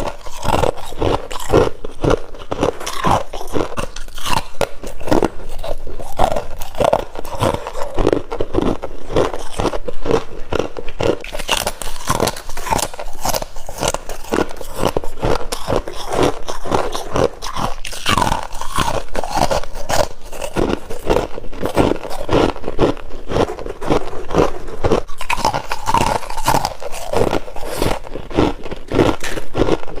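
Someone biting and chewing freezer frost held close to the microphone: a steady run of crisp crunches, several a second, as the packed frost breaks up between the teeth.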